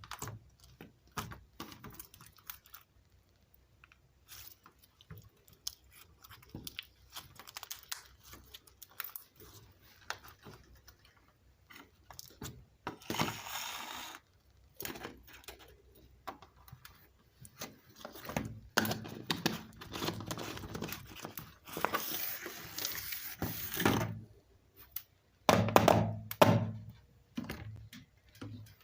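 Hands squishing and poking slime, making many small clicks and pops, with a few longer squelching stretches about halfway through and near the end.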